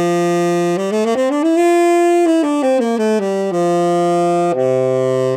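Tenor saxophone played with a full, even tone: a held low note, a quick stepwise run up and back down, then held notes, with a brief dip to a lower note near the end. It demonstrates the sound of a correct embouchure, the bottom lip set about where the reed meets the mouthpiece.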